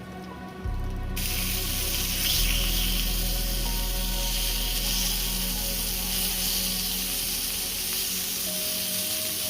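Meat sizzling on a hot grill over a campfire. The sizzle starts suddenly about a second in and continues steadily, over a low rumble that fades toward the end. Soft background music plays throughout.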